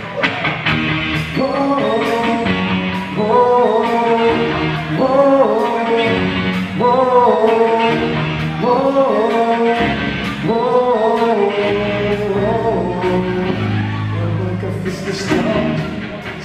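Live rock band playing: electric and acoustic guitars, keyboard and drums, with a melody line over the chords and a steady drum beat.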